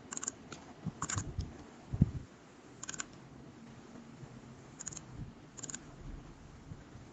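A few scattered, faint clicks of a computer mouse and keyboard, with one louder low thump about two seconds in.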